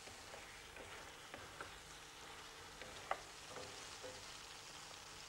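Chopped wild mushrooms frying faintly in lard in a pan, with a few light clicks about a second and a half and three seconds in.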